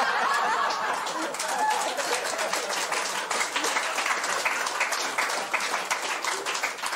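Studio audience laughing and applauding in response to a joke's punchline. The laughter fades after the first couple of seconds and the clapping carries on.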